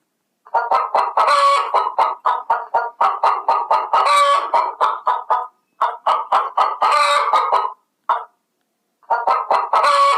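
Chicken clucking rapidly, about five clucks a second, with a louder drawn-out squawk about every three seconds; it breaks off briefly twice.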